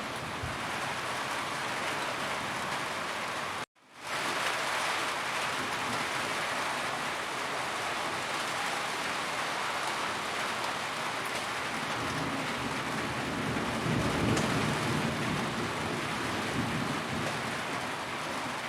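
Steady rain drumming on a roof, with a low rumble of thunder swelling and fading about two-thirds of the way through. The rain cuts out completely for a moment just before four seconds in, then comes straight back.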